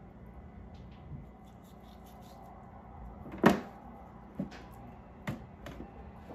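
Raw flounder fillets being handled in a thin disposable aluminium foil pan: a few sharp knocks and crinkles of the pan, the loudest about three and a half seconds in, followed by three smaller ones.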